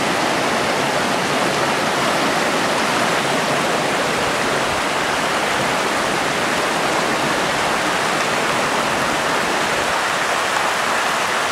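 Stream water rushing steadily over rocks in a shallow, tumbling flow.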